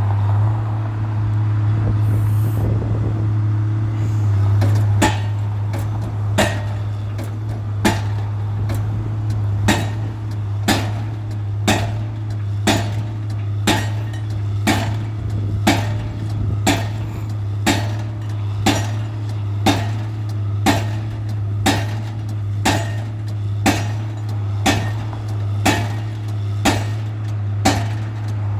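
Pile driver hammering a pile: sharp, evenly spaced strikes about every second and a half, starting about five seconds in, over a steady engine drone.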